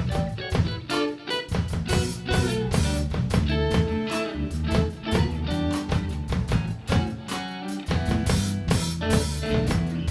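Band music with guitar, bass and drums playing to a steady beat.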